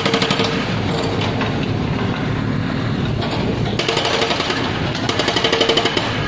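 Hydraulic breaker hammer on an excavator, rattling in rapid blows: a short burst at the start and a longer one from about four seconds in. Excavator diesel engines run steadily throughout.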